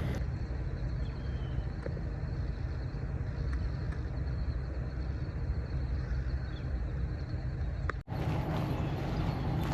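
Steady low rumble of a vehicle driving, broken by a brief dropout about eight seconds in.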